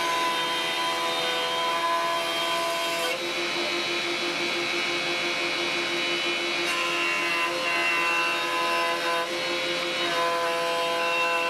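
Warrior benchtop jointer planing a thick ash blank, with the cutterhead noise steady under sustained background music chords that change every few seconds.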